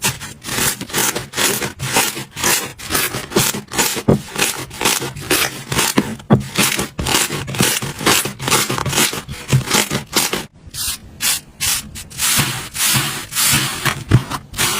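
Slime being worked by hand in quick repeated strokes, each a short rasping noise, several a second, with a brief pause about ten and a half seconds in.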